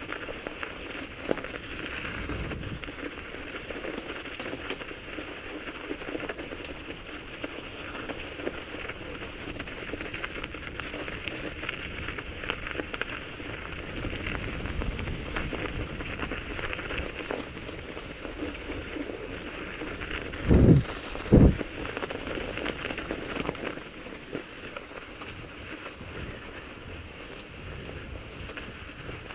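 Mountain bike rolling along a snow-covered trail: a steady rumbling hiss from the tyres and the bike, with many small clicks and rattles. About two-thirds of the way through come two heavy thumps about a second apart.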